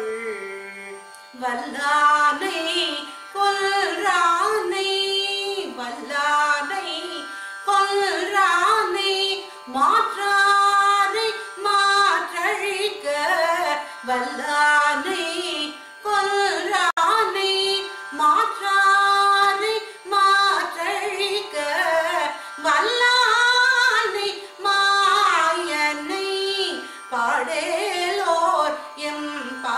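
A woman singing a Tamil devotional hymn verse in Carnatic style, in phrases with short breaks between them and with gliding, ornamented notes, over a steady drone.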